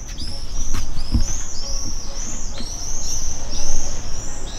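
A small bird calling over and over with short, high, arching chirps, about three a second without a break. Faint paper rustling and a soft bump about a second in lie underneath.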